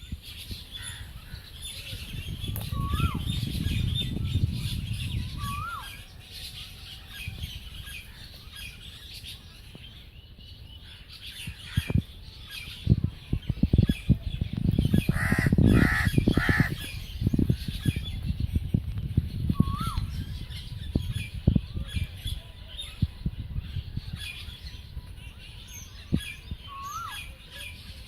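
Birds calling: a crow caws three times in quick succession about halfway through, over short chirps from other birds and a steady high chatter. A low rumble, like wind on the microphone, comes and goes, with scattered sharp knocks through the middle.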